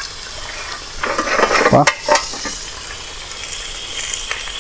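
Fish frying in hot oil in a steel plow-disc pan over a wood stove, a steady sizzle. About two seconds in, a utensil scrapes and knocks sharply against the pan as the big fish is taken up.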